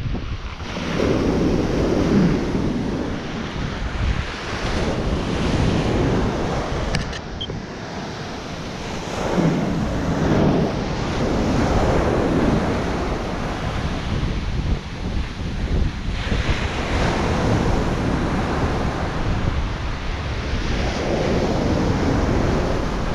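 Ocean surf breaking and washing up the beach, swelling and falling about three times, with wind rumbling on the microphone.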